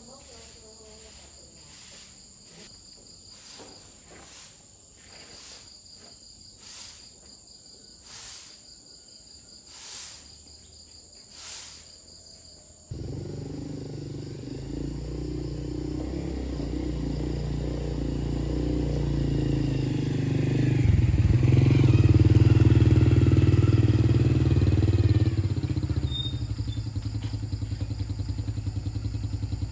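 Insects chirping in regular pulses, then about halfway through a motorcycle engine starts abruptly and runs, growing louder, before dropping back near the end to a steady, evenly pulsing idle.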